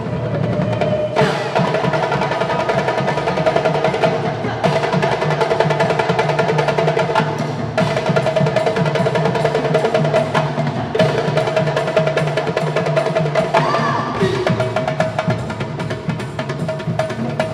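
A percussion ensemble playing music: dense, rapid clicking strikes over steady held melodic tones.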